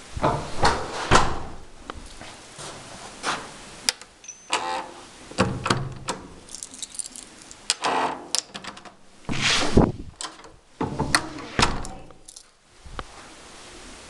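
Kitchen clatter: an irregular run of knocks, clinks and thuds, like utensils, doors and drawers being handled.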